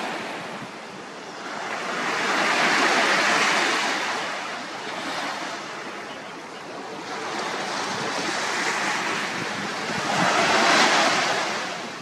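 Small sea waves breaking and washing up a sandy beach, the surf noise swelling and fading in slow surges.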